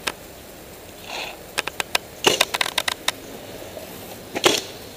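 Pneumag paintball marker firing sharp pops: one shot at the start, a quick string of three about a second and a half in, a faster string soon after, and single shots near three seconds and near the end.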